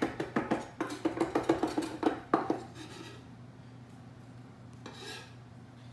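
Chef's knife chopping fresh cilantro on a wooden cutting board: a quick run of knocks, about six a second, that stops after about two and a half seconds.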